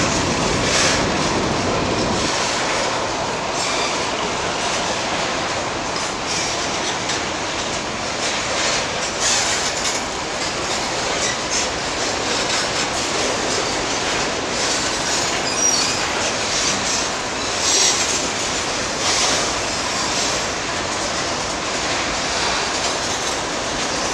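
Loaded freight wagons of a passing train rolling by at close range: a steady rumble and rattle of steel wheels on rail, with scattered clacks as the wheels cross rail joints.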